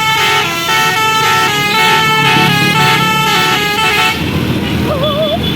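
Basuri telolet multi-tone bus air horn playing a fast melody of changing notes, stopping about four seconds in. A bus engine rumbles underneath, and a few short wavering tones follow near the end.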